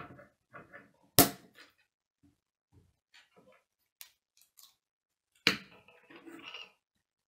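K'nex plastic rods and connectors clicking and rattling as they are handled and fitted together, with two loud sharp snaps, about a second in and about five seconds in.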